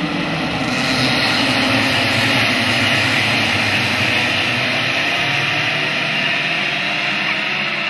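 A full pack of KF6 racing karts with two-stroke engines, all running hard together in one dense, overlapping engine noise, getting louder about a second in as the bunch passes close.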